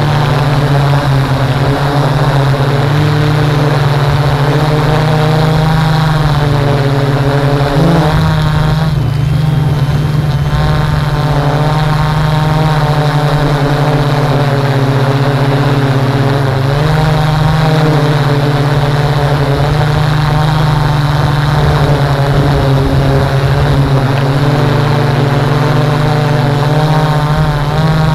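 A drone's electric motors and propellers whirring steadily, heard close from its onboard camera. The pitch of the whine rises and falls several times as it manoeuvres.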